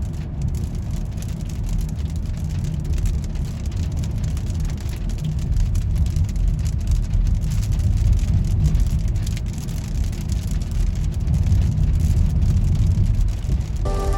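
Steady rain with a low, constant rumble of road traffic.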